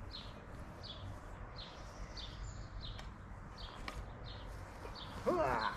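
A bird chirping repeatedly, short high chirps about two a second over a low background hum. Near the end a louder animal call with rising pitch cuts in.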